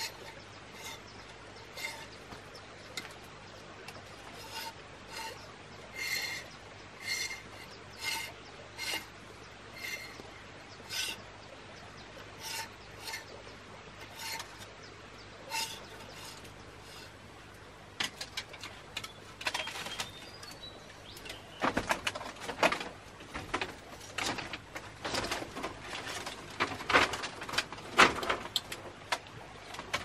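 A knife blade scraping along a split bamboo strip in short squeaky strokes, about one a second. About halfway through these give way to louder, quicker clicks and knocks of bamboo being handled.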